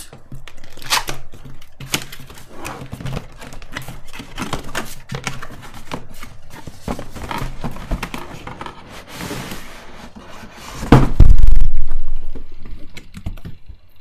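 Cardboard packaging being handled and opened: a steady run of clicks, scrapes and rustles with tape tearing off the box flap, and a loud heavy thump about eleven seconds in.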